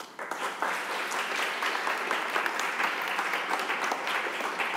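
Lecture audience applauding, many hands clapping in a dense, steady patter that begins right away and starts to die down near the end.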